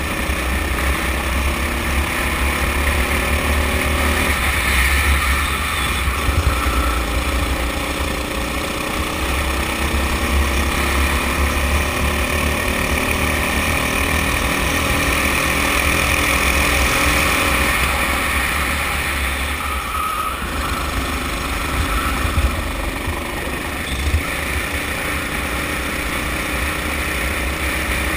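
Sodi kart's engine running at racing speed, heard from on board. Its pitch climbs over and over as it accelerates, then drops about twenty seconds in as the kart slows, before climbing again.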